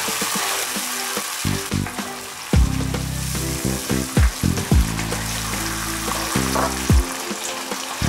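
Tomato paste and onion sauce sizzling in a frying pan while it is stirred with a silicone spoon: a steady frying hiss. Under it, background music with low bass notes and drum beats.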